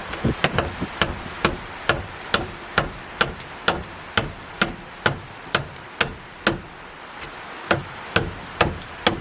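Sharp knocking strikes, like chopping or hammering, about two a second, with a short break about seven seconds in.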